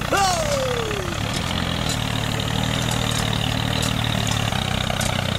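Steady low engine running as the miniature toy tractor pulls its cultivator through the sand, with a short cry falling in pitch just at the start.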